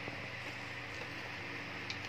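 Steady room noise: a low hum under an even hiss, with a faint click just after the start and a sharper click near the end.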